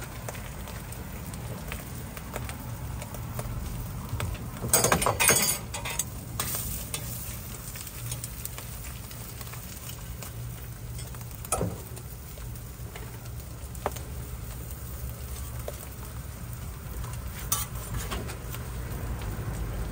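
Food frying on a flat griddle with a steady sizzle, and a metal spatula scraping and clattering against the griddle, loudest for about a second around five seconds in, with a few single sharp knocks later.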